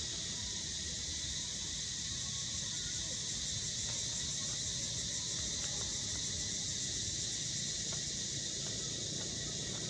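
A steady, high insect chorus droning without a break, over a low background rumble.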